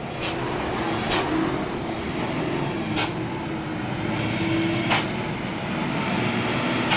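Hino diesel tanker truck passing close by and pulling away uphill, its engine running steadily, with five short sharp sounds spaced one to two seconds apart.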